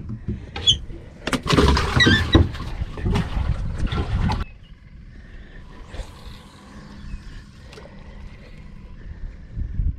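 Knocks, thumps and rattling on a fiberglass boat deck as a speckled trout he has decided to keep is handled and stowed. It stops suddenly about four and a half seconds in, leaving a faint steady hum.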